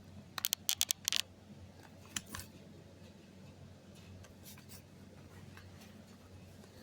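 A quick run of about six short, sharp scraping or crinkling strokes about half a second in, one more a little after two seconds, then only faint handling noise.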